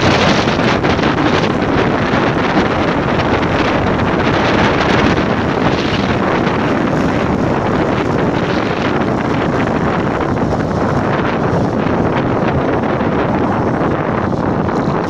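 Loud, steady wind rush on the microphone of a camera riding along a road on a moving vehicle, with the vehicle's running noise underneath.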